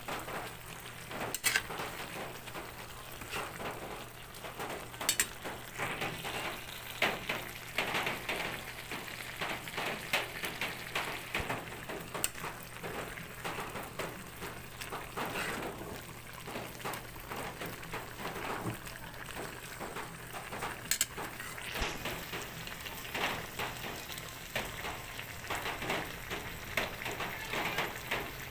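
Jackfruit cooking in coconut milk in a pot, the liquid simmering with a steady crackly bubbling and popping, with a few sharp clicks.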